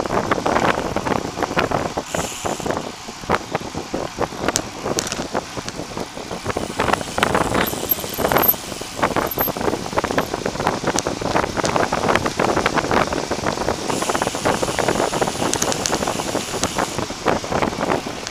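Road noise from a bicycle ridden at speed, picked up by a camera clamped to the handlebar: wind rushing over the microphone and tyres on asphalt, broken by frequent irregular rattles and knocks as the bike rolls over rough pavement.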